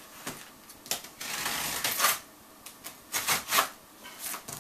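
Knife slicing through the packing tape on a cardboard shipping box, in several scraping strokes, the longest about a second in.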